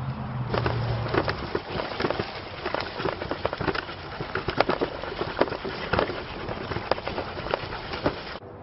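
Wind rushing over a bike-mounted camera's microphone, with irregular clicks and knocks from the bicycle and towed dog trailer rattling over rough grass. It cuts off suddenly near the end.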